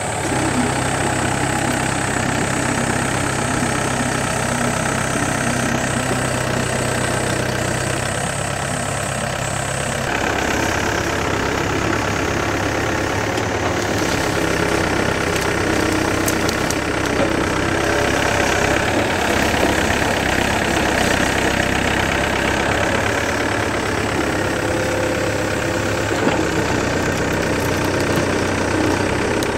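Yanmar B7 hydraulic excavator's diesel engine running steadily as the arm and bucket dig and clear brush; its sound shifts about ten seconds in.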